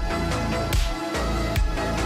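Electronic background music with a steady beat and heavy bass hits about every 0.8 seconds.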